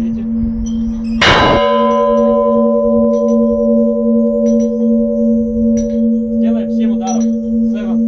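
Large Orthodox church bell struck once by its hand-pulled clapper about a second in: a bright clang followed by a long ringing tone with several overtones. Under it, the bell's low hum from an earlier stroke keeps sounding, pulsing slowly.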